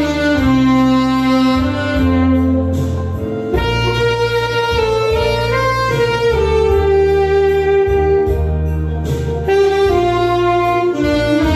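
Saxophone playing a slow ballad melody in long held notes over an accompaniment with a steady bass line.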